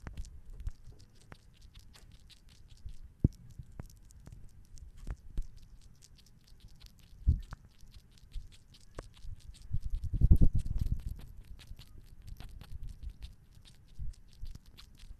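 Sugar glider eating close up against a microphone: a quick, irregular run of small clicking and smacking mouth sounds, with a few louder knocks and a louder spell of low bumping about ten seconds in.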